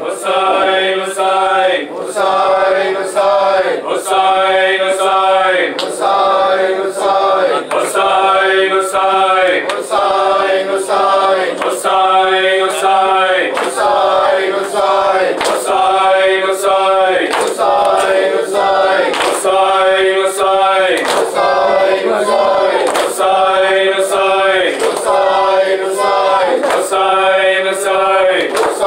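Group of men chanting a noha (Shia lament) in unison into a microphone, with rhythmic chest-beating (matam) keeping time at about two slaps a second.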